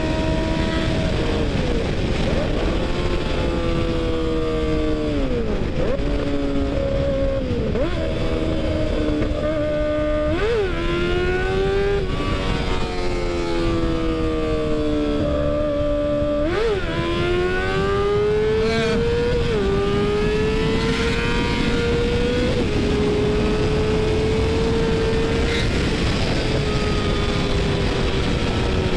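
Motorcycle engine running at highway speed under wind rush, its note rising and falling with the throttle and jumping sharply in pitch a couple of times.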